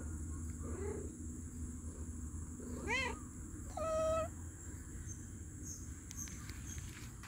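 Domestic cat meowing twice: a short meow that rises and falls about three seconds in, then a longer, flatter meow about a second later.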